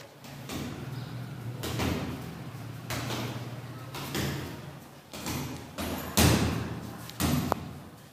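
Punches landing on a hanging heavy punching bag: a run of about nine irregular thuds, the loudest about two-thirds of the way through.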